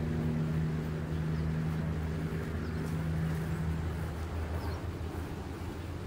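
A steady low engine hum that fades out about four seconds in, over a constant low rumble.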